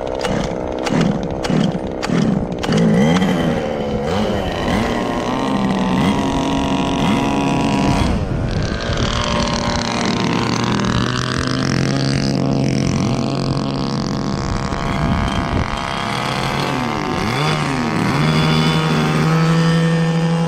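Small two-stroke gas engine of a 1/5-scale RC truck running just after being started. It is blipped with quick rises and falls in revs for the first few seconds, then settles into a steady idle with slower swells in pitch.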